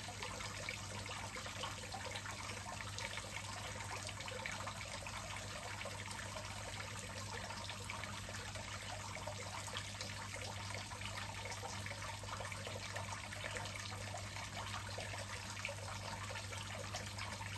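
Steady trickle of many thin water streams falling from a 3D-printed top-feed watering ring onto expanded clay pebbles in a hydroponic grow bed.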